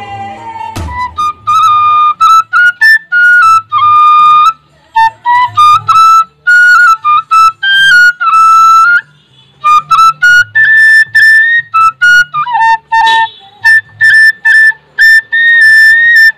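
A bamboo side-blown flute playing a melody in short phrases of held and quick notes, with brief gaps between phrases. The tail of the electronic intro music cuts off just under a second in.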